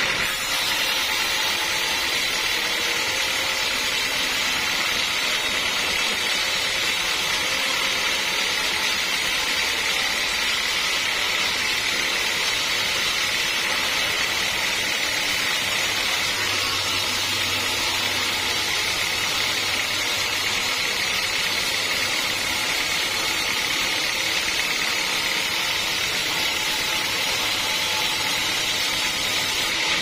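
Band sawmill blade cutting lengthwise through a teak log, a steady, unbroken sawing noise.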